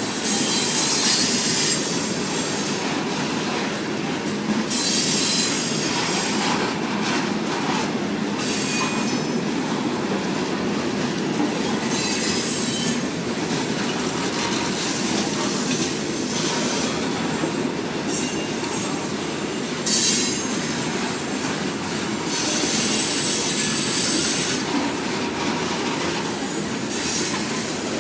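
Freight train cars rolling past with a steady rumble, broken several times by brief high-pitched wheel squeal.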